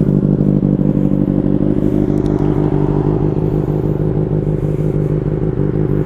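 Yamaha FZ6 Fazer 600's inline-four engine idling steadily through an aftermarket WR sport exhaust, with a deep tone.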